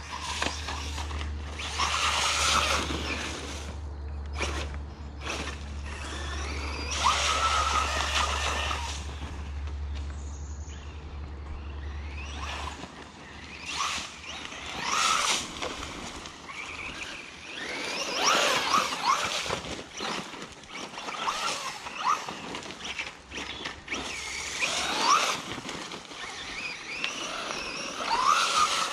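Bezgar HM124 brushless RC car running on a 3S LiPo: the motor whine rises and falls in repeated bursts of throttle, with tyre noise on the dirt.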